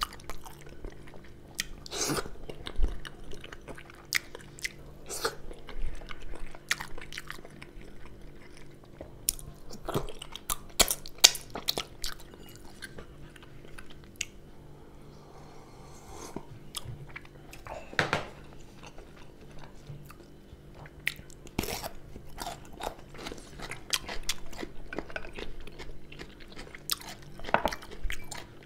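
Close-miked chewing and biting of food, mostly lamb meat from a stew, with irregular sharp mouth clicks. A faint steady low hum sits underneath.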